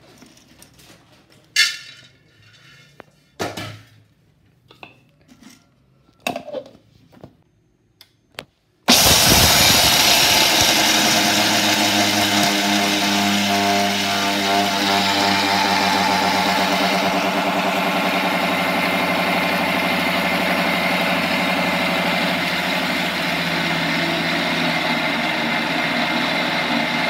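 A few scattered knocks and clicks, then about nine seconds in an electric mixer grinder's motor starts suddenly and runs steadily, grinding roasted peanuts in its steel jar into peanut butter.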